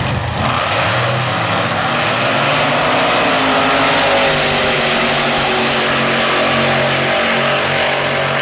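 Wheelstander drag cars launching and running down the strip at full throttle. Loud, dense engine noise builds to its loudest about four seconds in, with the pitch rising, then eases slightly toward the end.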